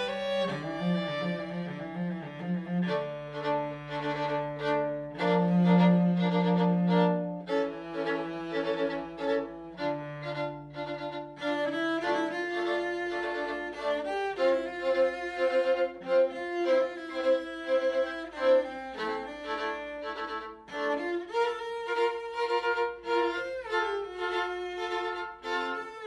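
Violin and cello playing slow, sustained notes together. The cello's low notes drop out about halfway through, leaving the violin's line above.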